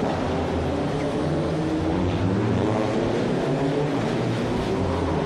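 Touring car engines running hard on a street circuit, the note stepping up and down as the cars accelerate and back off through the corners, heard off a television broadcast.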